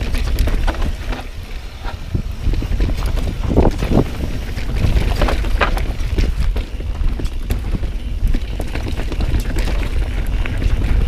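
Wind buffeting the camera microphone while a Pivot Firebird mountain bike descends a rough downhill trail, its frame, chain and tyres rattling and clattering with many sharp knocks over the steady rumble.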